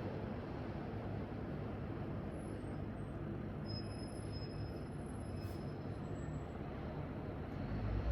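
Street traffic background noise: a steady rumble of passing vehicles, swelling louder near the end.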